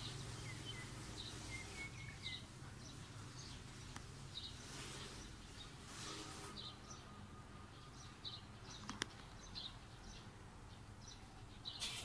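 Birds chirping faintly: scattered short, high chirps and a brief trill, over steady background noise, with one sharp click about nine seconds in.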